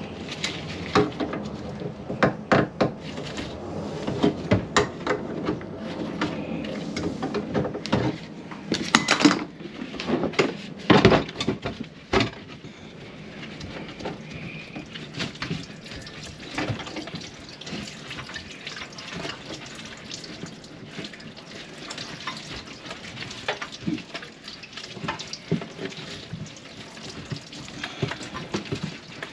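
Water running and splashing in a kitchen sink whose drain is plugged with grease, with frequent knocks and clatter through the first dozen seconds, then a quieter, steadier splashing with only the odd click.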